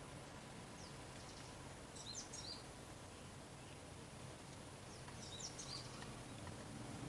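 Faint outdoor ambience with a low steady hum, and a bird giving two short runs of high chirping notes, about two seconds in and again about five seconds in.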